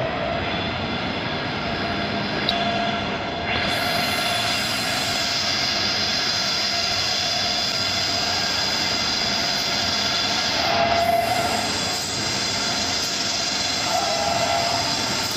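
Jumbo-roll paper log saw running: steady mechanical noise with a constant whine, briefly louder about eleven seconds in and again near the end.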